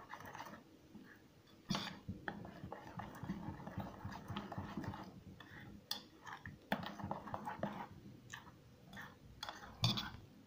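Metal spoon stirring whole-wheat flour into a wet banana batter in a steel bowl: irregular scraping and clinks of the spoon against the bowl as the flour is mixed in.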